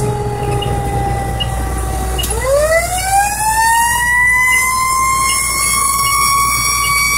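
Fire engine's siren heard from inside the cab: its pitch sinks slowly, then about two seconds in it sweeps back up into a high, steady whine. The truck's engine runs low and steady underneath.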